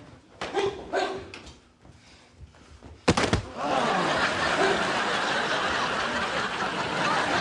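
A couple of short shouts, then a sharp smack of an impact about three seconds in as a sparring karateka is knocked down, followed by an audience bursting into sustained laughter.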